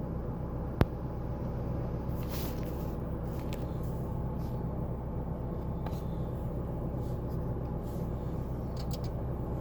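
Skoda Fabia Mk1 engine idling steadily. The engine is running after a repair to the instrument cluster's immobiliser fault, which had stopped the car from starting. A single sharp click about a second in.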